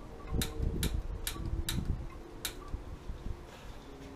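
Piezo pilot igniter on a gas water heater clicking as its button is pressed again and again to light the pilot: about five sharp clicks a little under half a second apart, then a pause.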